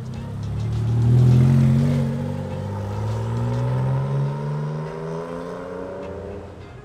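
A car engine accelerating, its pitch climbing steadily. It is loudest about a second in and fades toward the end.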